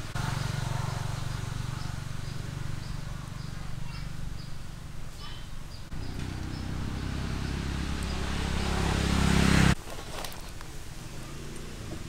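Outdoor ambience: a steady low rumble with faint insect chirps repeating at an even pace. The rumble swells and then cuts off abruptly near the end.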